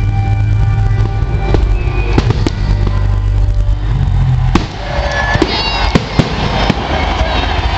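Fireworks going off in sharp bangs over loud music with a heavy bass line. About four and a half seconds in a loud bang comes as the bass drops away, followed by a spell of crackling.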